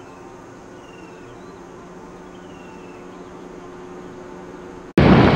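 Faint steady hum with a short, high, falling chirp repeating about every second and a half. Near the end it cuts abruptly to loud wind noise on the microphone of a riding motorcycle.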